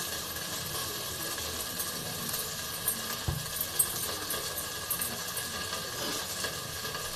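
Quiet handling sounds of hands rubbing mustard oil over whole brinjals, with a few light taps about three seconds in, over a steady faint hiss.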